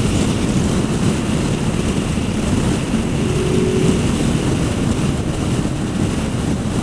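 Honda VFR800 motorcycle at motorway speed: steady wind rush over the microphone and road noise, with the bike's engine running underneath.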